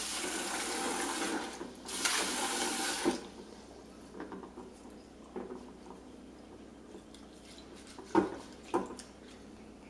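Kitchen tap running into a stainless steel pot of rice, with a brief break, then shut off about three seconds in. After that come faint swishing and small splashes of hands washing rice in the water, and two brief sharper sounds near the end.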